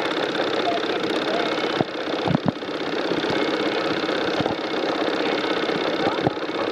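Steam locomotive running with a steady, fast mechanical beat, and a few sharp knocks about two and a half seconds in.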